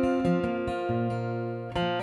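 Acoustic guitar strumming a steady country-style rhythm with moving bass notes: the instrumental intro of a live song, before the vocal comes in.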